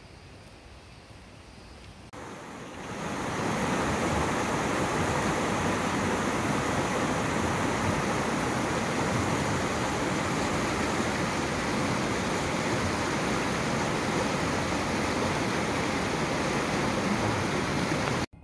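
Steady, loud rush of flowing water that swells in over the first few seconds and cuts off abruptly just before the end.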